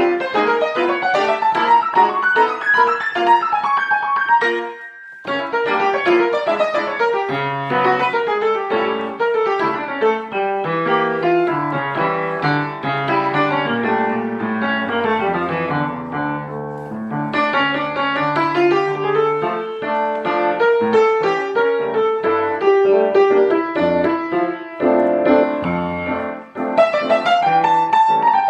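Solo piano music, a flowing piece of quick, rippling runs of notes, with a brief pause about five seconds in.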